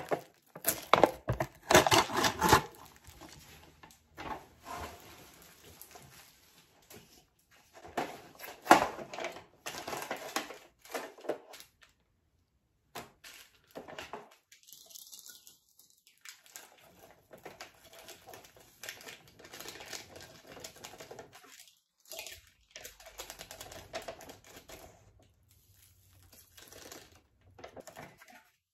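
Plastic packaging of instant cup tteokbokki with ramen being torn open and crinkled: seasoning sachets ripped and rustled in irregular bursts, loudest about a second in and again about nine seconds in.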